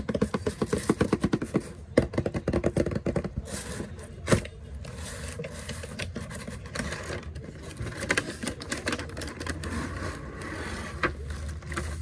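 Cardboard toy box being handled and opened. It starts with a quick run of rubbing, tapping clicks and a single sharp knock about four seconds in. Then comes steady scraping and rustling as the inner tray slides out of the box sleeve.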